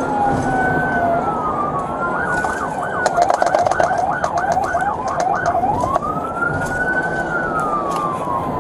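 Police car sirens wailing in slow rising and falling sweeps, switching to a fast yelp for a few seconds in the middle before going back to the wail.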